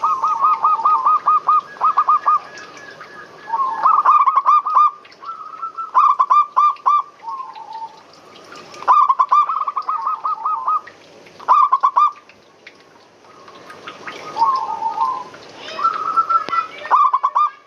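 Zebra doves (perkutut) cooing in phrases of rapid, evenly repeated notes, each phrase one to two seconds long, with short pauses between them.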